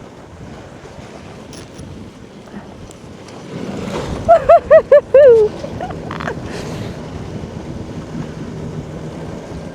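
Electric ATV riding over snow with wind rushing on the microphone and a faint steady motor whine. About four seconds in there is a quick run of five short, loud, high-pitched cries, then one more.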